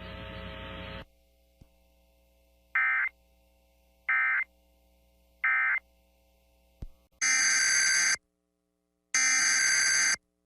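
EAS digital data bursts from a NOAA Weather Radio broadcast. A second of radio hiss ends, then come three short end-of-message bursts about a second apart, closing one alert. After a click come two longer bursts of about a second each, the header of the next alert.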